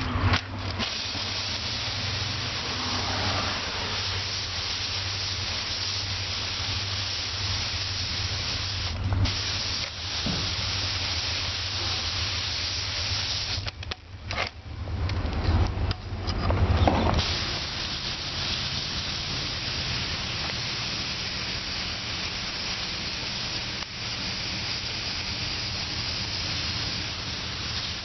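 Water spraying onto the screen and fiberglass pads of an electronic air cleaner, rinsing the dirt out: a steady hiss that breaks off briefly about a third of the way in and again around the middle.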